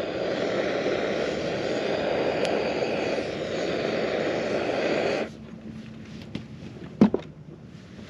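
Handheld gas torch burning with a steady hiss as it lights charcoal, its flame shutting off suddenly about five seconds in. A single sharp knock follows about seven seconds in.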